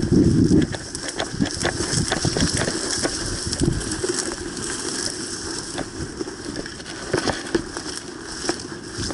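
Rustling and scattered irregular crackling clicks, with a heavy thump against the microphone in the first half second: a player on the move through brush and grass, gear rattling.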